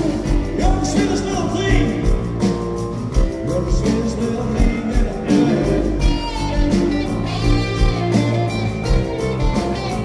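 Live blues-rock band playing, with saxophone, trumpet and trombone over electric guitar, keyboard and drums.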